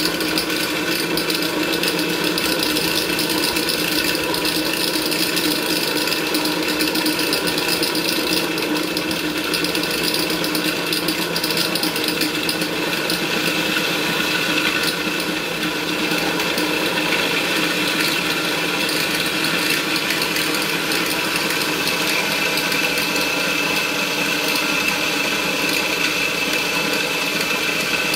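Portable electric dry mill grinder running steadily while it grinds corn grits.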